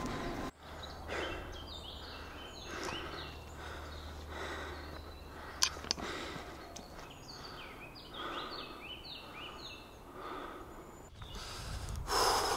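A hiker breathing hard while walking uphill, a breath about every second and a half, with birds singing in the surrounding forest. Two sharp clicks come about halfway through.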